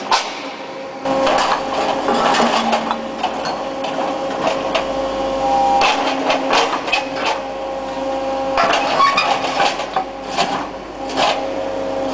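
Brokk 180 demolition machine working in an aluminium furnace: irregular clanking knocks and scraping over a steady machine hum.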